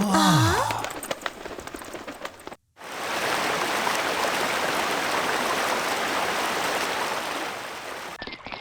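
Steady rushing of a flowing stream, starting about three seconds in and fading just before the end, after a brief falling tone at the very start.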